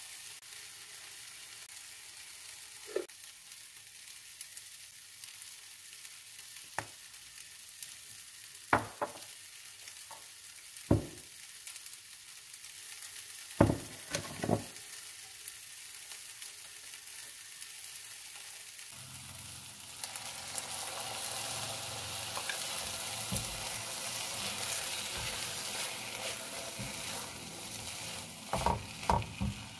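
A wooden spoon gives several sharp knocks against a glass bowl while a sauce is mixed. About two-thirds through, fried rice starts sizzling in a frying pan as it is stirred with a spatula, with a few quick taps of the spatula near the end.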